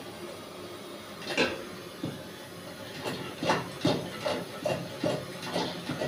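Steady hiss of a kerosene stove burning under a kadhai of frying oil. A sharp knock comes about a second and a half in, and from about three seconds in comes a run of short knocks and clatters, a few each second.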